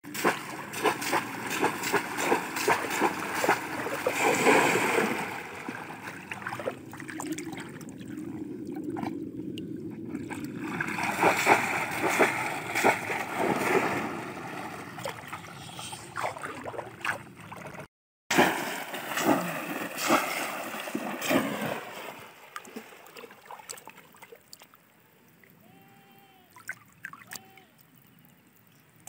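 Heavy splashing and sloshing of muddy floodwater as people lunge and wade through it, full of sharp slaps and churning. It dies down near the end to faint water movement.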